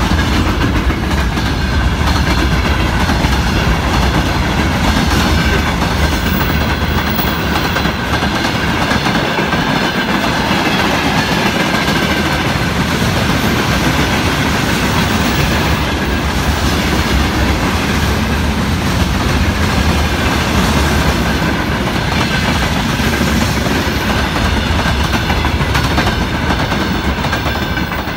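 Freight train wagons rolling past at close range: a loud, steady rumble and clatter of steel wheels on the rails, with a faint high steady tone above it.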